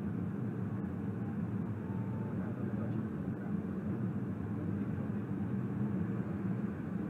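A light aircraft's engine and propeller running as a steady low drone, heard from inside the cockpit.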